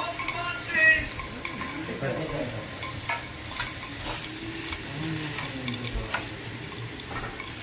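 Meat sizzling on a Korean barbecue grill, with scattered clicks and clatter of utensils.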